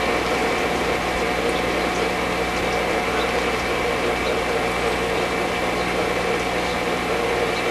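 A steady mechanical hum with hiss, unchanging throughout.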